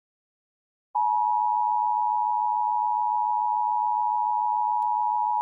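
About a second of dead silence, then the Emergency Alert System attention signal starts suddenly: a steady, unwavering alarm tone near 1 kHz that announces the severe thunderstorm warning to follow.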